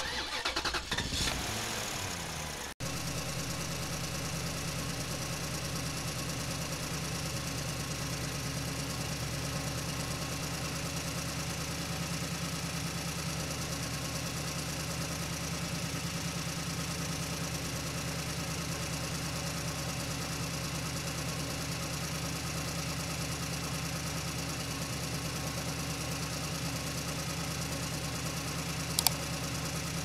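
Steady, unchanging engine-like motor drone that starts after a sudden cut about three seconds in, with a few short clicks near the end.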